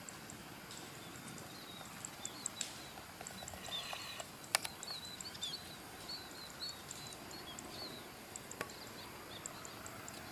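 Quiet outdoor background with small birds chirping repeatedly, plus a sharp click about halfway through and a fainter one later.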